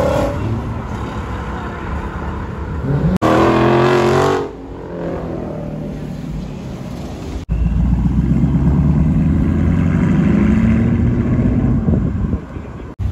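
Car engines pulling away and driving past, in short cut-together clips. The loudest is a hard rev about three seconds in, and from about seven and a half seconds an engine note climbs slowly in pitch as a car accelerates away.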